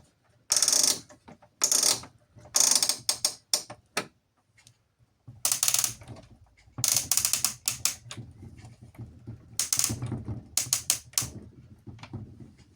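A toy washing machine working: short bursts of rapid ratcheting clicks from its plastic mechanism, repeated over and over, with a low steady motor hum coming in about five seconds in and running under the clicks.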